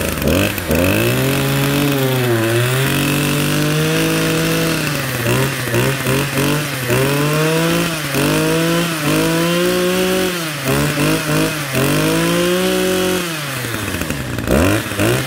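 Used Echo 27 cc two-stroke brush cutter engine running, its throttle squeezed and released over and over so the revs rise and fall repeatedly. Near the end it drops back toward idle for about a second, then revs up once more.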